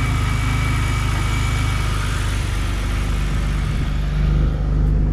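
BMW E90's N52 straight-six, fitted with an open cone air filter, idling steadily just after being started on fresh oil. A thin high whine rides over it in the first half and fades out.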